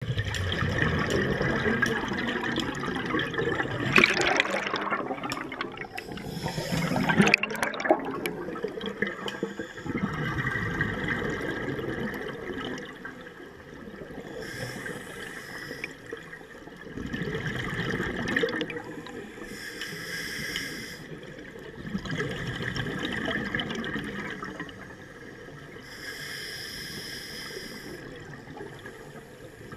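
Scuba diver breathing through a regulator, heard underwater: a short hiss on each inhale and a rush of bubbling on each exhale, in a slow cycle of about five to six seconds. The loudest bubbling comes from about four to eight seconds in.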